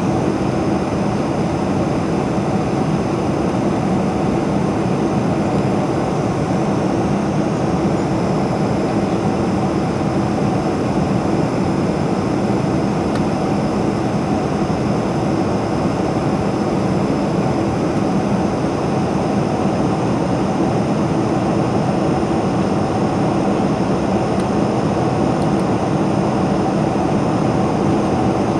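Steady cabin noise of a Boeing 747-400 climbing out, heard from a window seat beside the wing: the jet engines' drone and the rush of airflow, with a low hum holding at a few fixed pitches.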